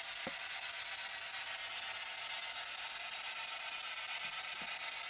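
Steady radio static hiss from a ghost box scanning radio frequencies for spirit voices, with two faint brief blips, one just after the start and one near the end.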